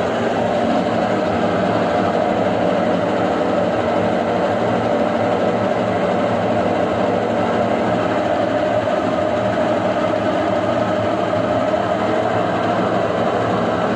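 Brastemp BWK11 washing machine running with a steady, continuous mechanical rumble and hum.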